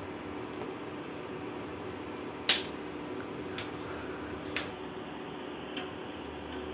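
A few sharp clicks of a knife and fingers against a steel plate, the loudest about two and a half seconds in, over a steady background hum.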